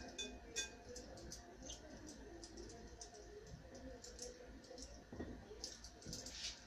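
Faint, scattered light clicks and taps as a small plastic herb jar is shaken over a glass mixing bowl to sprinkle in herbs, with two short ringing clicks in the first second.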